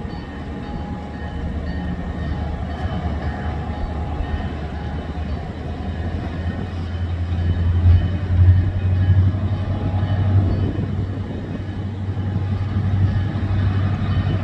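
Low, steady rumble of the EMD SD40-2 diesel locomotive moving past, swelling a little louder about halfway through, with wind on the microphone.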